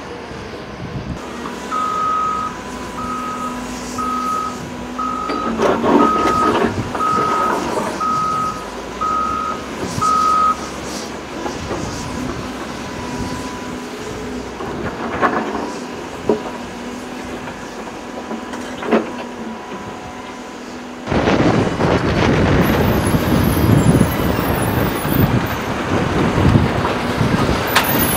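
Diesel earthmoving machinery at work: a back-up alarm beeps about once a second, nine times, over a steady engine. About three quarters of the way through, a loud rough rushing rumble starts and carries on, heavy material being moved or dumped.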